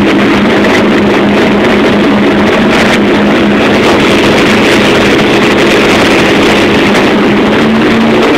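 Powerboat engines running flat out, a steady drone over the rush of wind and water at speed; the pitch rises slightly near the end.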